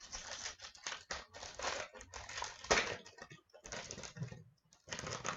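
A hockey card pack being opened by hand: the wrapper crinkling and tearing, and the cards handled, in quick irregular clicks and scrapes with one louder rip near the middle.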